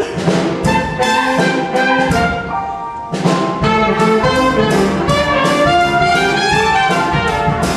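Upbeat brass-led band music with a steady beat, an instrumental stretch of a show tune.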